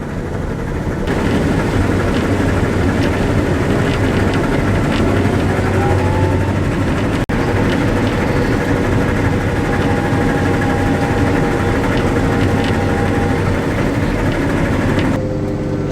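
Combine running while harvesting soybeans, heard from the cab: a steady engine hum under a louder even rush of threshing noise, with scattered light ticks. The rush comes in about a second in and falls away near the end.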